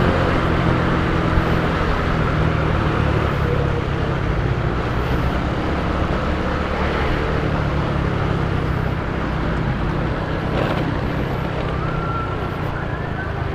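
Diesel engine and exhaust of an ALS intercity bus running with a steady, deep, rough rumble. The uploader likens this exhaust note to a person snoring.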